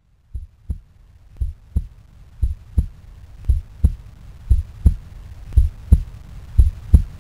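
Heartbeat: a double thump, lub-dub, about once a second, growing steadily louder over a low rumble.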